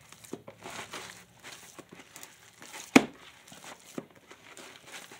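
Hands kneading raw ground chicken with egg and grated Parmesan in a bowl: irregular wet squishing and crackling, with one sharp knock about three seconds in.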